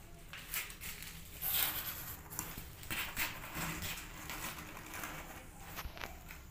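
Irregular rustling and scratching as a cat moves about in a cardboard box lined with a cloth, with scuffs loudest near the middle.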